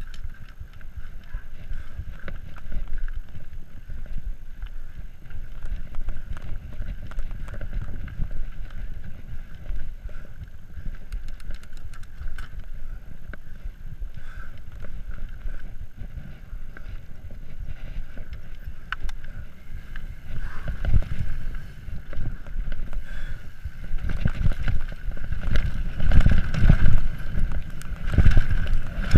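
Wind rushing over an action camera's microphone on a YT Capra mountain bike riding down a dirt trail, with the tyres rumbling and the bike rattling over the ground. It gets louder and rougher over the last several seconds as the trail turns rocky.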